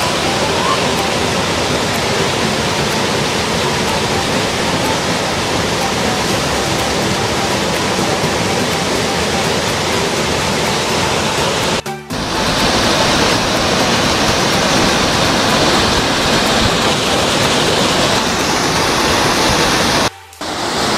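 Waterfall and shallow water rushing over rock: a steady, dense rush of falling water. It drops out briefly about twelve seconds in and again just before the end, and is hissier after the first break.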